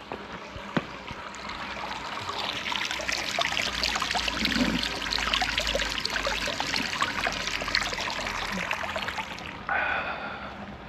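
Water from a small fountain splashing and trickling. It grows louder about two seconds in and drops away near the end.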